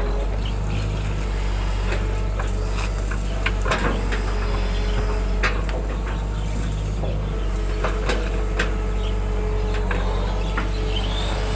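Excavator diesel engine running steadily with a constant low hum and a held whine, with scattered sharp knocks and clanks from the machine at work.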